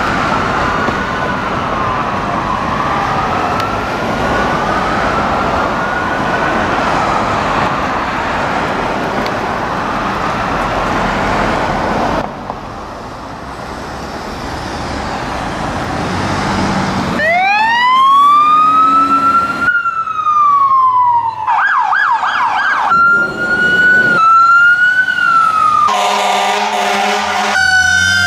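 Whelen electronic siren on a 2020 Pierce fire engine running a slow wail that rises and falls over road noise for about 12 seconds. After a short quieter gap the siren winds up again, louder, then moves from a falling wail to a fast yelp and stepped tones, with a deep Howler low-frequency tone under it near the end.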